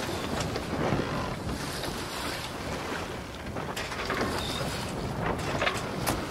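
Canal tour boat under way: steady wind on the microphone and water noise, with a few sharp clicks near the end.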